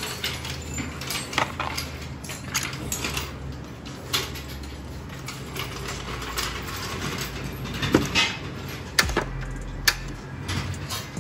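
Tools and car parts being handled: irregular clicks and knocks, with a few sharper knocks near the end, over a steady low hum.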